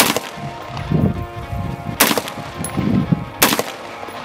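Three 5.56×45 mm rifle shots with M855 green-tip ammunition: one at the start, one about two seconds in, and another about a second and a half later.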